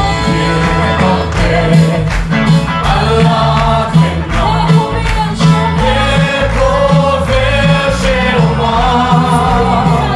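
A group of voices singing a gospel song over loud instrumental accompaniment, with a steady beat of percussive strikes.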